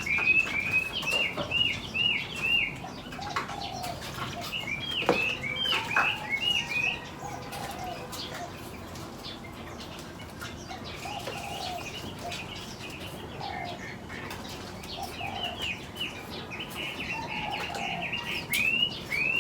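Caged aviary birds chirping in quick runs of short hooked notes, with softer lower calls and occasional wing flaps. The chirping comes in bursts: at the start, about five seconds in, and again near the end, with a quieter stretch between.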